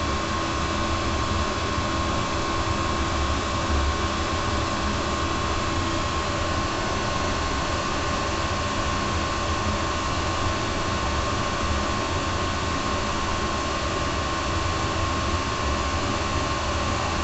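Elevator car descending non-stop: a steady low rumble with a constant hum and a faint high tone, unchanging throughout.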